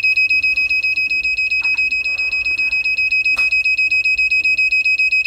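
Electrotherapy unit's built-in beeper sounding a rapid, even train of short high-pitched beeps, about ten a second. Each beep marks one step as the program button is held down and the programs scroll.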